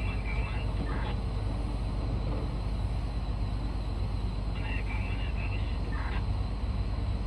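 Heavy diesel engines of a mining excavator and haul truck running, a steady low drone. Short higher-pitched chirps sound over it near the start and again about five seconds in.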